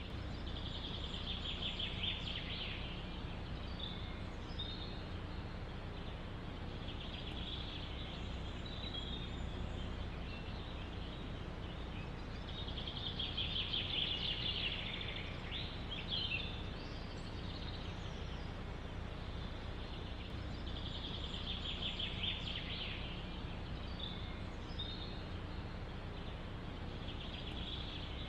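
A songbird singing a short trilled phrase, repeated every few seconds, over a steady low rush of forest ambience.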